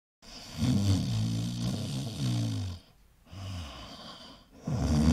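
Cartoon snoring sound effect: a long, low snore, then a softer breath out, then a second snore beginning near the end.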